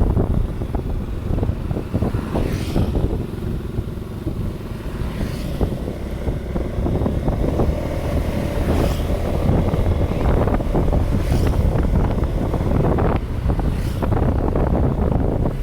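Wind buffeting the microphone over a steady low engine hum, with a few short gusts.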